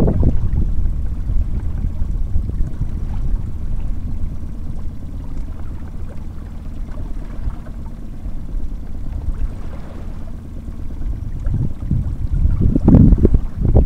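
Wind rumbling on the microphone with water sloshing against the side of an inflatable boat, a low steady rumble that swells at the start and again about twelve seconds in.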